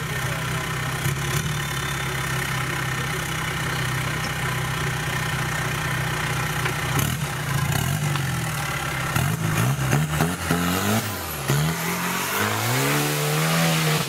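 Off-road 4x4 engine running hard at steady high revs, then revved up and down over and over from about nine seconds in while its wheels spin for grip.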